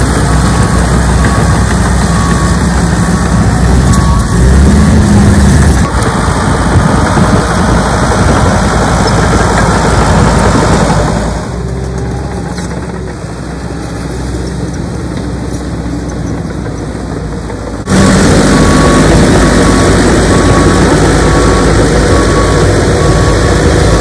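Heavy diesel engines of a Caterpillar crawler excavator and a John Deere crawler dozer running at work, loud and steady. The sound is quieter for several seconds in the middle, then comes back up suddenly. A regular beeping runs under the engines at the start and again in the last few seconds.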